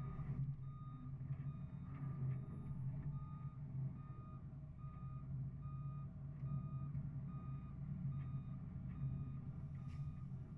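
Truck's reversing alarm beeping in an even rhythm over the steady low running of the truck's engine.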